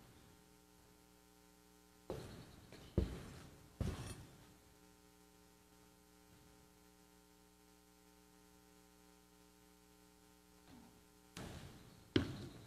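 Steady low electrical hum in a quiet room, broken by a few short knocks and clinks about two, three and four seconds in and twice more near the end.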